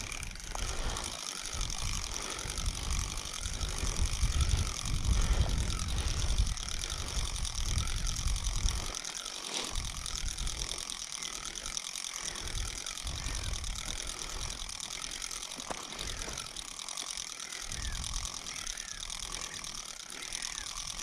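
Spinning reel being cranked to wind in a ledger line, its gears whirring in an even rhythm of turns, about one a second. A low rumble of wind on the microphone is strongest in the first half.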